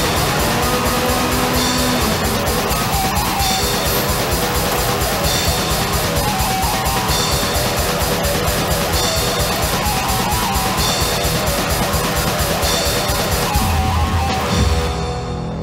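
Black metal song: very fast drumming under distorted electric guitar. Near the end the drumming stops and a low chord is held.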